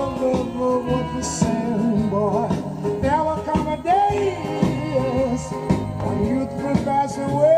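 A song with a singing voice and guitar accompaniment, playing through the speaker of a 1950 General Electric console radio-phonograph.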